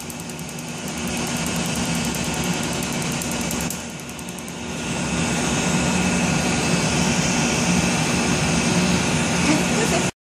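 Tattoo-removal laser handpiece snapping in a rapid run of pulses over a steady machine hum. About halfway through the snapping stops and the cold-air skin chiller's nozzle hisses steadily and louder over the treated skin, until the sound cuts off suddenly near the end.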